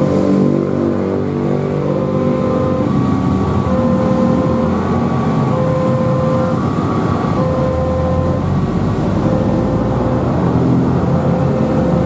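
Railway level-crossing warning alarm sounding a repeating electronic tone, on for about a second and off for about a second, over the steady running of road-vehicle engines waiting at the crossing.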